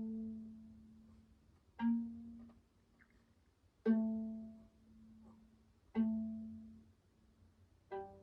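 A string instrument played pizzicato: single plucked notes about two seconds apart, each ringing and fading before the next.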